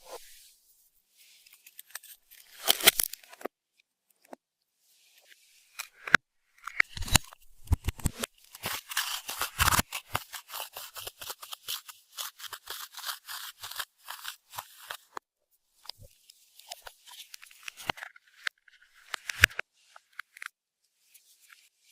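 Slime being squished and stretched by hand, giving runs of sticky clicks and pops, densest in the middle.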